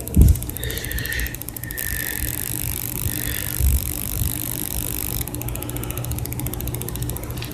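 Handling noise from a phone being moved around a small guitar amp: a dull thump just after the start and another about three and a half seconds in, with rustling and fine rapid ticking over a steady low hum.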